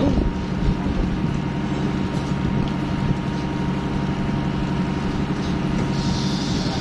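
Boat engine running steadily, a constant low hum that holds the same pitch throughout.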